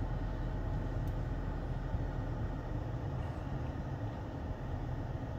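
Steady low rumble of a car heard from inside its cabin, with the engine running.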